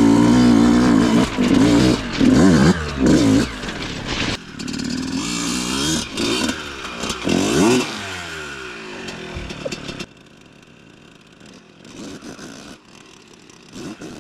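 An engine revving up and down again and again under load while off-roading, with knocks and rattles. After about ten seconds it drops to a much quieter, fainter running.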